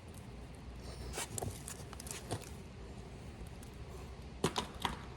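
Scattered clicks and knocks of hand work with tools and metal parts, with two sharper knocks close together near the end, over a low steady rumble.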